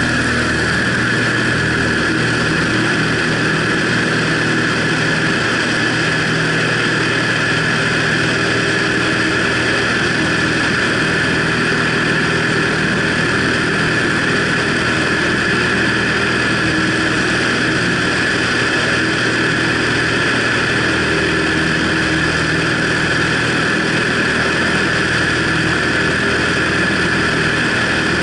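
Single-engine light aircraft's piston engine and propeller running steadily at takeoff power through the takeoff roll and climb, heard from a camera mounted under the wing.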